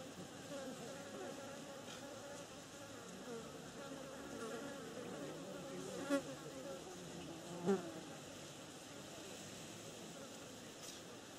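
A flying insect buzzing close by, its pitch wavering as it moves about. Two sharp clicks stand out, about six and seven and a half seconds in.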